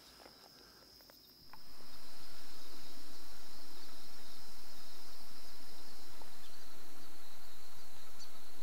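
Insects droning with one steady high-pitched tone, dipping slightly in pitch past the middle. A few light clicks come in the first second and a half, then a steady low rumble sets in and stays.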